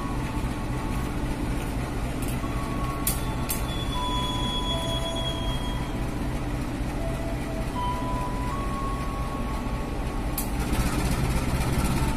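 CC 201 diesel-electric locomotive moving off slowly at the head of a passenger train: its diesel engine gives a steady low drone, over which thin squeals from the wheels waver in pitch. A few sharp clicks come about three seconds in and again near the end.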